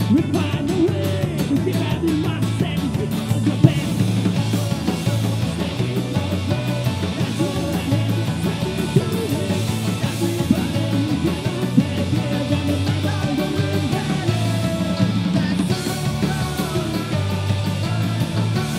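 Celtic punk rock band playing live: a man singing over a drum kit and strummed acoustic guitar with a steady beat.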